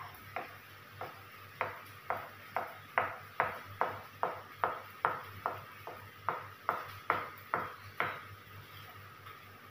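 Chef's knife chopping a thin egg omelette into strips on a wooden cutting board: a steady run of sharp knocks, about two and a half a second, stopping about eight seconds in.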